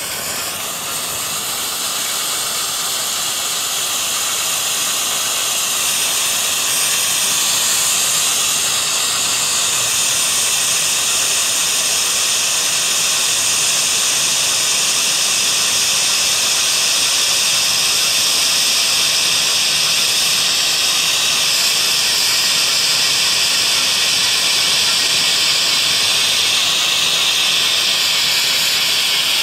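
COMET Höllenlichter blue Bengal flare, a category F1 handheld Bengal fire, burning with a steady hiss as it jets flame. The hiss grows louder over the first few seconds, then holds.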